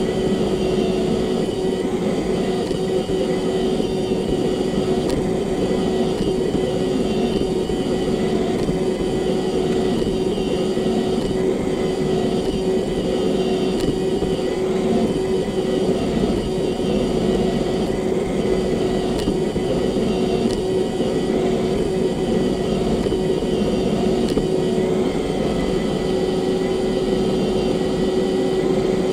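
Roomba robot vacuum running, heard from on board: a steady motor hum with one constant whining tone over a rushing noise.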